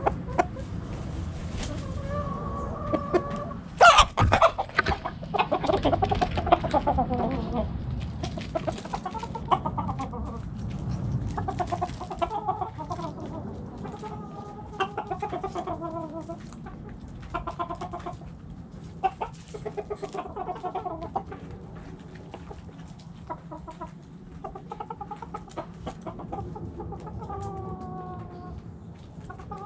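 Backyard chickens in a coop: hens clucking and calling again and again in short pitched calls, with one loud, long call from a rooster crowing about four seconds in.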